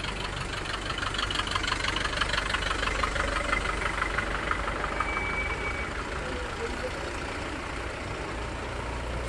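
A motor vehicle's engine running steadily with a low rumble. A fast rhythmic clatter rides over it for the first few seconds, and a brief high tone sounds about five seconds in.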